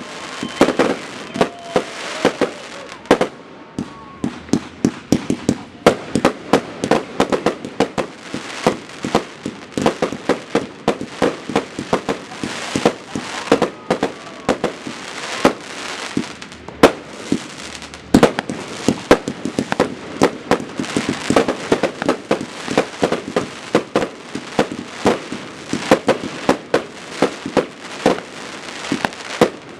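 30 mm firework cake batteries firing in quick succession: a continuous string of launches and shell bursts, several bangs a second.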